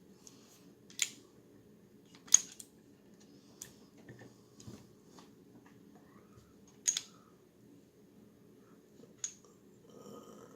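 Sharp metal clicks and clacks of a 1911 pistol's parts being handled and fitted together during reassembly, about five separate clicks spread out, the loudest a little over two seconds in, over a faint steady low hum.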